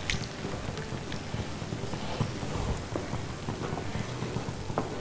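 Curry masala bubbling and sizzling steadily in a frying pan as tamarind water is poured in from a ladle and stirred with a wooden spatula, with a few light clicks.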